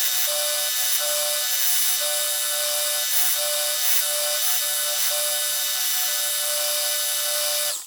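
Electric power tool running steadily, abrading a small steel tool blade to shape with a high, hissing whine. It cuts off suddenly at the end.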